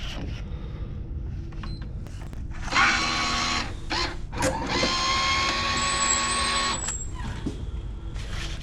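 Machinery running with a steady low rumble; about three seconds in it grows louder with steady whining tones, and there is a single sharp knock in the middle.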